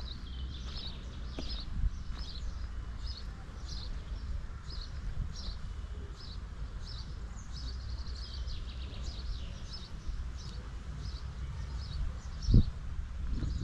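A bird chirping over and over, short high chirps about two a second, over a steady low rumble like wind on the microphone. Two dull thumps break in, one about two seconds in and one near the end.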